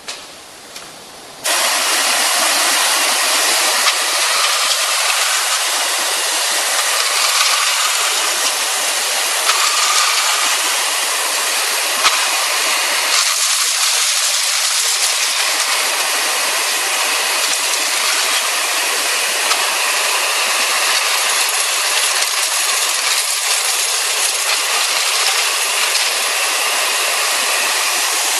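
Compressed-air–driven wet/dry vacuum cleaner starting abruptly about a second in and then running with a loud, steady hiss of rushing air, with a few sharp clicks over it.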